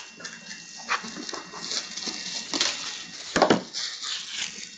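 Hands handling shrink-wrapped cardboard card boxes: plastic wrap crinkling and rustling, with small knocks and one heavier knock about three and a half seconds in.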